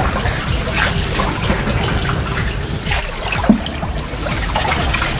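Water trickling and sloshing around a small boat moving along a canal, with a single sharp knock about three and a half seconds in.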